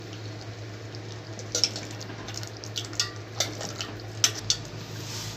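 Metal ladle stirring mutton in a thick yogurt broth in a steel pot, with several clinks and scrapes against the pot, the sharpest about four seconds in, over a steady low hum.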